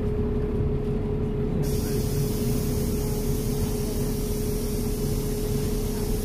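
Optare Solo bus heard from inside, its engine running with a steady drone and a constant whine. About two seconds in, a hiss of air from the bus's air system starts suddenly and runs on for about five seconds before cutting off.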